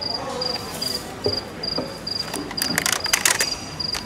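Cricket chirping, used as a comic 'awkward silence' sound effect: a short high chirp repeating evenly about two to three times a second. A burst of rustling and clattering comes through the middle.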